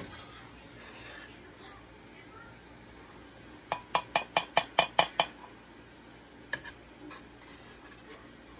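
Metal spoon rapping quickly against the rim of a ceramic bowl, about nine sharp taps in a second and a half, then two more a second later: knocking skimmed foam off the spoon into the bowl.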